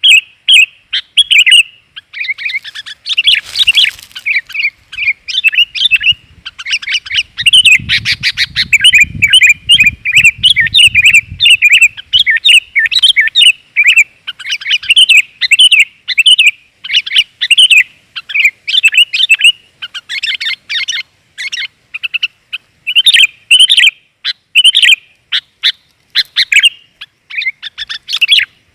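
Sooty-headed bulbul (kutilang) calling busily in quick, repeated chirping phrases, the kind of female-bulbul recording played to lure males in.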